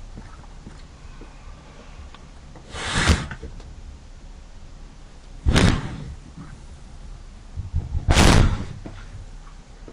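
A pet sneezing three times, about two and a half seconds apart, each sneeze a short, sharp burst. It has something up its nose and can't stop sneezing.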